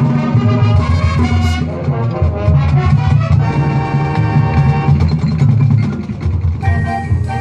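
High school marching band playing its field show: brass over a heavy low end, with drums and front-ensemble mallet percussion. Near the end the low end drops away and the music thins to lighter, repeated notes.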